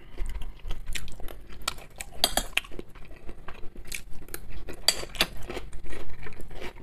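Metal spoon clinking and scraping against a plate while scooping vegetable salad, a string of short sharp clicks, a few ringing briefly, with close-miked chewing between them.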